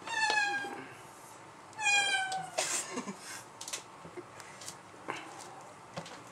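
Kitten meowing twice, high-pitched and slightly falling, each call about half a second long, followed by a short rush of noise and a few faint clicks.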